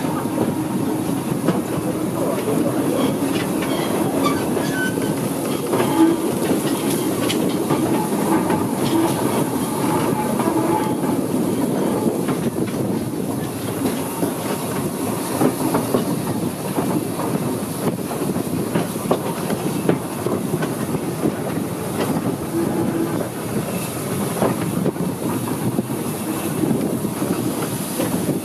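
Railway carriage running along the track: a steady rumble of wheels on rail with scattered clicks and knocks.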